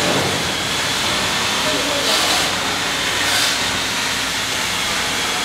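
Steady hissing room noise with indistinct voices in the background, swelling briefly twice.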